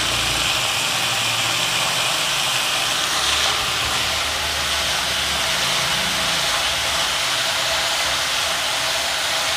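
Chopped spring onion bulbs sizzling steadily in hot oil in a non-stick frying pan.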